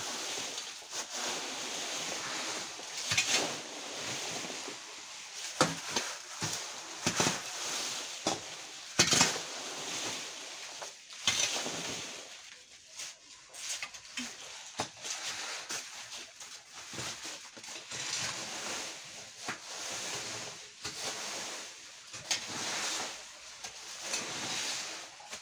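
Rakes scraping and rustling through fallen leaves in irregular strokes, with several sharper, louder scrapes.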